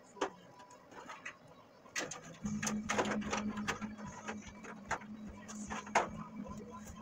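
Clicks, taps and light rattles of hands handling wiring and small parts in a truck's engine bay, irregular and unevenly spaced. A steady low hum comes in about two and a half seconds in.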